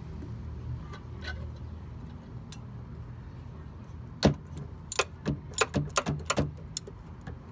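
A steady low rumble, then from about four seconds in a quick run of sharp metallic clicks as a screwdriver works the wire terminal screws on the classic Fiat 500's voltage regulator.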